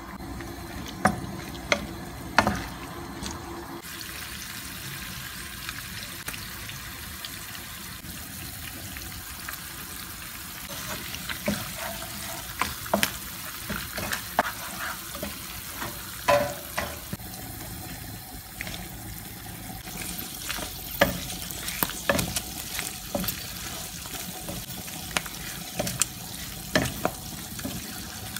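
Tuna frying in olive oil in a nonstick pan, a steady sizzle, while a wooden spatula stirs and knocks against the pan with sharp clicks and scrapes. A few sharp knocks near the start as the tuna is tapped out of its tin.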